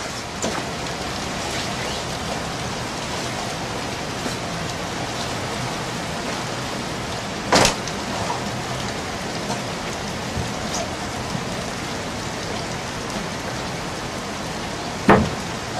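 Steady rain falling on a small river ferry boat's roof and the river around it, an even hiss. A sharp knock sounds about halfway through, and another near the end.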